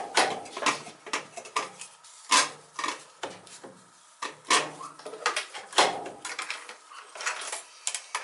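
Irregular metallic clinks and knocks of hand tools and metal parts being handled, a dozen or so sharp strikes, some ringing briefly.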